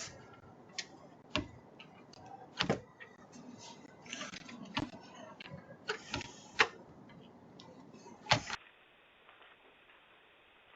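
Irregular sharp clicks and knocks, half a dozen louder ones among fainter ticks, over a low hiss; they stop abruptly about eight and a half seconds in, leaving a fainter hiss.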